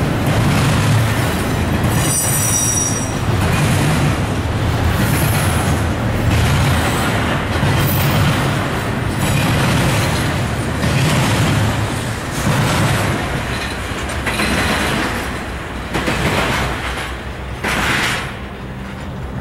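Double-stack intermodal freight train rolling past: a steady rumble and clatter of steel wheels on rail, swelling as each well car goes by. A brief high-pitched squeal about two seconds in; the sound eases off near the end.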